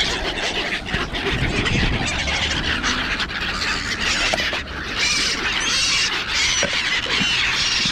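Flock of wild birds calling: a chorus of short, harsh squawks that grows denser about halfway through.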